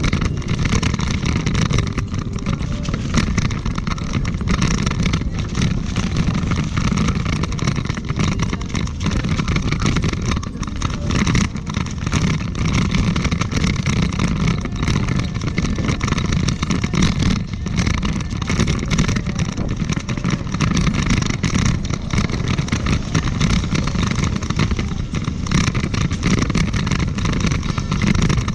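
Continuous low rumble of ride and wind noise picked up by a camera mounted on a small vehicle rolling along a paved path, with frequent small knocks from bumps.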